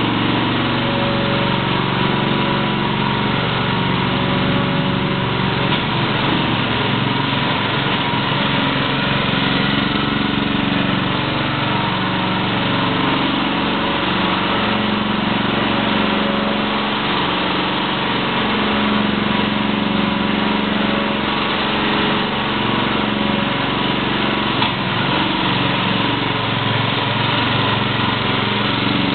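Small gasoline engine on a walk-behind airless line-striping machine running steadily at a constant speed.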